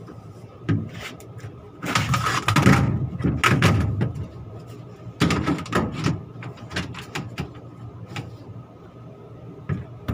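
Metal panels or filter frames of an air handling unit clattering and scraping as they are handled and slid into place, in several bursts over a steady machine hum.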